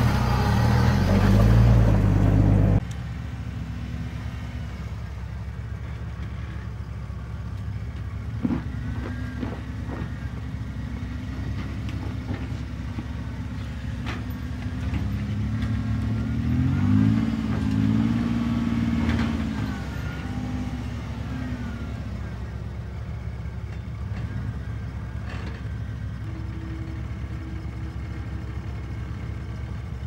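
Off-road 4x4's engine running at low revs while crawling a rocky trail, its pitch rising and falling with the throttle and revving up for a few seconds around the middle. A louder rushing noise fills the first three seconds and cuts off suddenly.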